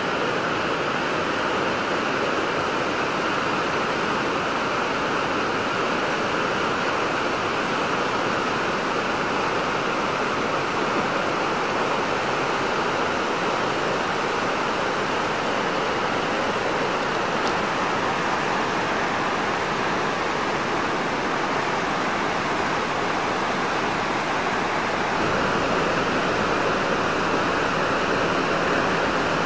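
River water rushing in a steady, unbroken roar of white noise.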